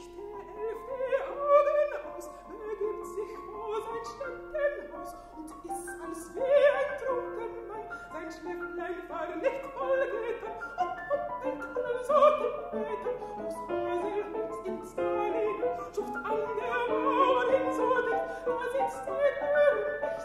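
Soprano singing a German art song (Lied) in classical operatic voice, moving through many short, quick notes, accompanied by a grand piano.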